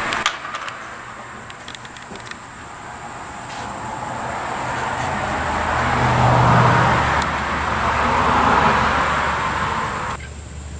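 Castrol Edge motor oil being poured in a steady stream during an oil change, the pouring growing louder and then stopping abruptly near the end.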